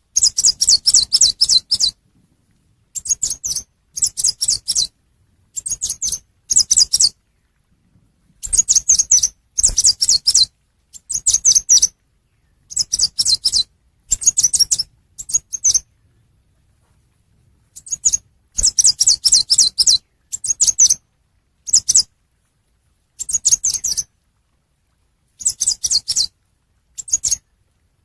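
Chim sâu xanh songbird call: bursts of rapid, high-pitched chirping twitters, each up to about two seconds long, repeated with short gaps and a longer pause a little past halfway.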